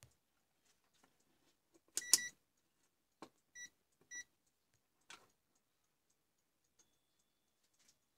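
ZT101 digital multimeter beeping: one short beep about two seconds in, then two quick short beeps about a second and a half later. Light clicks of the probes and dial being handled come in between.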